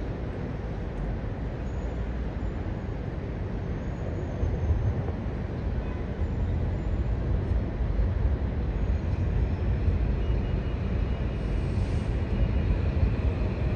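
Commuter train running, a steady low rumble that grows slowly louder, with a faint high whine joining about ten seconds in.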